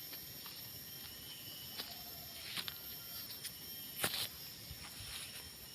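Faint rice-field ambience: a steady high-pitched hiss of insects, with a few scattered clicks and rustles, the loudest about four seconds in.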